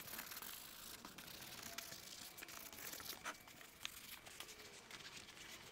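Faint scrubbing and rustling of a small brush and a nitrile-gloved hand working leather conditioner into a leather car seat, with scattered small clicks and crackles.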